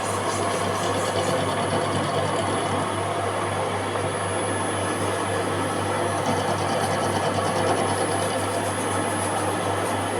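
Machine tool running steadily while machining a 316 stainless steel ring, a dense cutting noise over a constant low hum and a thin, steady high whine.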